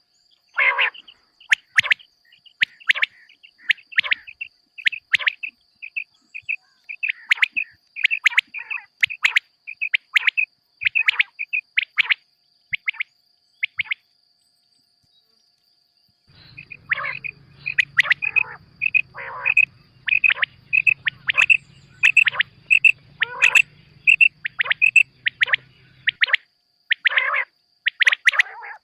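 Quail (batair) calling: a run of short, sharp calls, about one or two a second, broken by a pause of about two seconds midway. It is a recorded lure call of the kind played for quail hunting.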